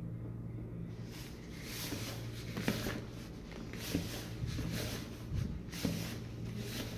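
A hand rubbing and squeezing crumbly flour dough made with yogurt and oil in a plastic bowl: soft, irregular rustling and scraping strokes over a steady low hum.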